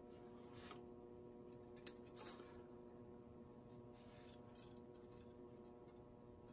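Near silence over a faint steady hum, with a few faint ticks and short scrapes, the sharpest about two seconds in, as a strand of thin steel tag wire is handled and started around a pencil.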